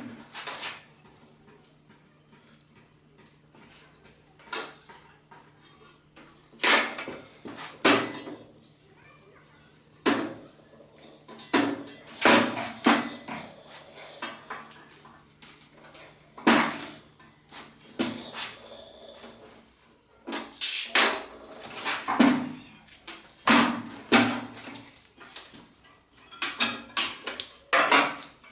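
Irregular metallic clinks and clatters of small metal parts and hand tools being handled and set down during work on an ATV exhaust heat shield. A faint low hum sits underneath and stops about two-thirds of the way through.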